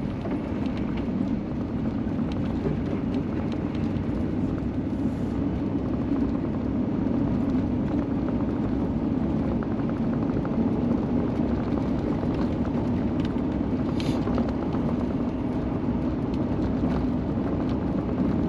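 Steady engine and road noise inside a Chevrolet's cab as it drives along a snow-covered interstate, with a brief click about 14 seconds in.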